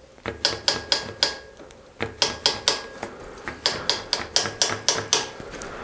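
Rhythmic ticking from a Mongoose mountain bike's rear wheel and drivetrain turning in the repair stand, about four ticks a second, in three runs with short pauses between them.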